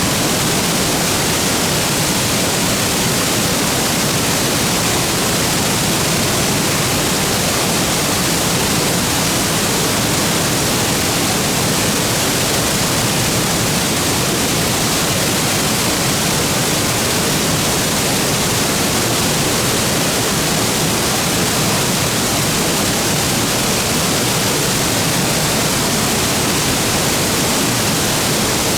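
Waterfall pouring steadily into its plunge pool: a loud, even rush of falling water with no change.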